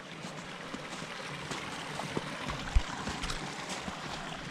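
Small mountain stream running steadily, with scattered light crunches of footsteps in snow and one brief low thump a little past the middle.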